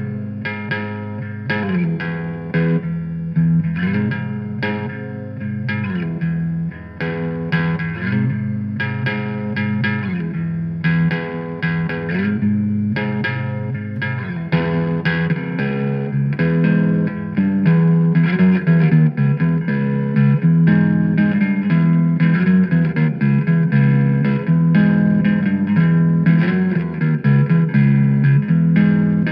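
Surf-rock instrumental played on electric guitar over bass guitar, with steadily picked notes. It grows louder and busier about halfway through.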